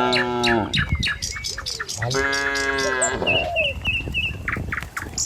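Cattle mooing twice: one moo trailing off about half a second in, another about two seconds in lasting about a second. A bird chirps several times right after the second moo.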